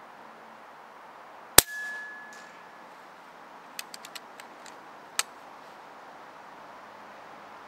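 A single shot from a 6.35 mm (.25 cal) PCP air rifle about a second and a half in: a sharp crack with a ringing tone trailing it for about a second. A run of light clicks follows around four seconds in, then one more sharp click a little after five seconds.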